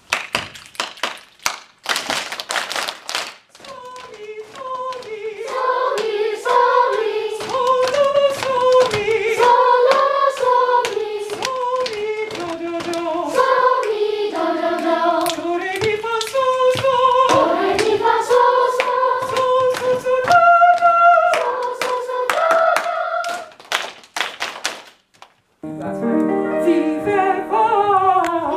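A children's choir singing a melody in unison, with sharp rhythmic hand claps running through the song. The singing stops briefly near the end and then starts again.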